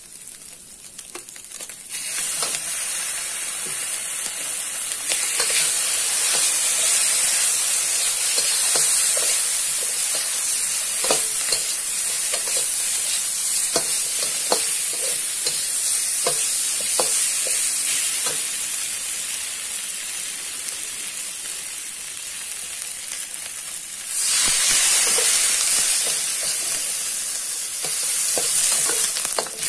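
Leftover roast duck and chicken sizzling in oyster sauce in a hot wok, with a metal wok spatula stirring and scraping against the pan in frequent short clinks. The sizzle grows louder about two seconds in and again near the end.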